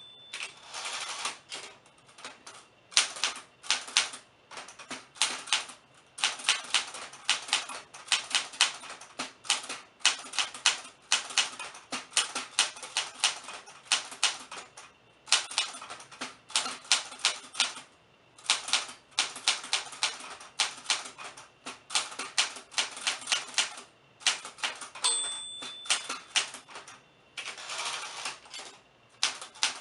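Typewriter typing: fast runs of key strikes with short pauses. About 25 seconds in, a brief bell ding sounds, the margin bell warning that the line is nearly full.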